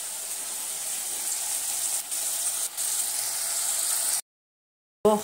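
Paneer cubes frying in hot oil in a pan, a steady sizzle that cuts off suddenly about four seconds in.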